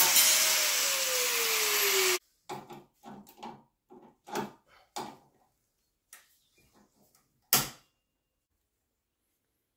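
Power tool working wood, its motor pitch sagging steadily under load for about two seconds before it cuts off. A string of short knocks and rattles follows, then a single sharp click.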